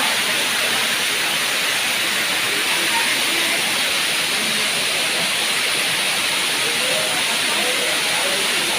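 Waterfall's falling water, a steady loud rushing hiss.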